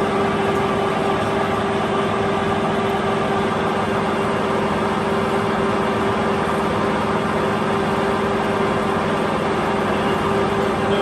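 Clausing Colchester 15 x 42 engine lathe running at a steady speed with its power feed driving the opposite way: an even whine over a lower hum.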